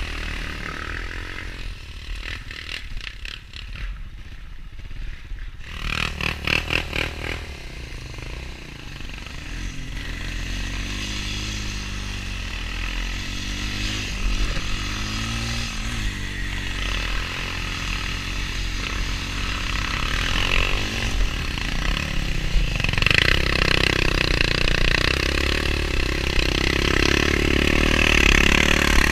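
ATV engines running on a snowy trail ride, the pitch rising and falling with the throttle. There is a short burst of rapid pulsing about six seconds in, and the engine grows louder over the last few seconds.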